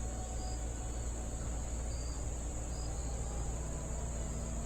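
Steady high-pitched chirring of crickets, with wind rumbling on the microphone underneath.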